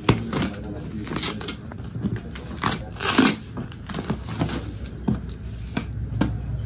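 Plastic stretch wrap crinkling and tearing and a box cutter cutting the packing tape and plastic strapping on a cardboard carton, in irregular crackling bursts with a louder tear about three seconds in.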